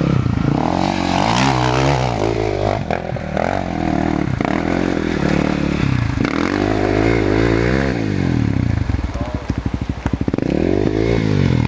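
Dirt bike engine revving up and down repeatedly. About eight to ten seconds in it drops to low, chugging revs, then revs up again near the end.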